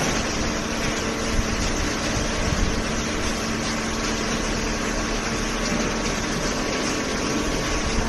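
Hydraulic cardboard baler running: a steady mechanical hum and hiss from its motor and hydraulic pump, with a few faint knocks.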